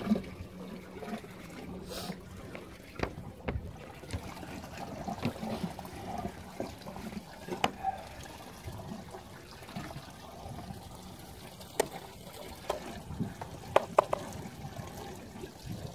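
Sea water lapping and sloshing against the side of a small fishing boat, with scattered light clicks and taps.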